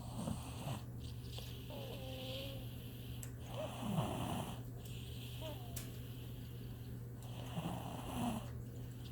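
Snoring in slow, regular breaths: three snores about four seconds apart, with a faint whistling tone between them.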